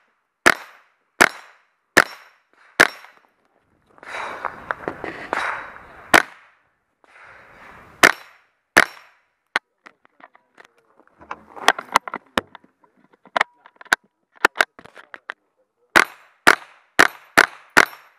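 .22 rimfire rifle firing in strings of sharp shots: four in quick succession at the start, scattered shots through the middle, and a fast string of about six near the end. A stretch of rustling noise comes in between, a few seconds in.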